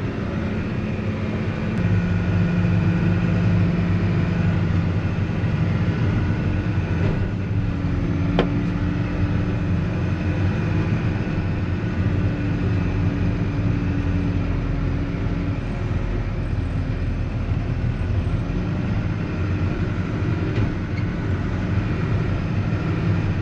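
Vehicle engine running steadily with road noise while driving a rough back-country track.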